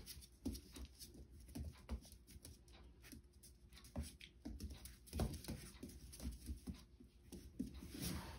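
Two Goldendoodle puppies play-fighting on a tile floor: faint scuffling with scattered claw and paw taps and a few soft thumps.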